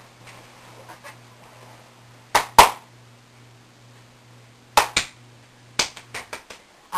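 Sharp knocks in pairs, the first pair a little over two seconds in and the second near five seconds, then a quicker run of knocks near the end, over a faint low steady hum that cuts off near the end.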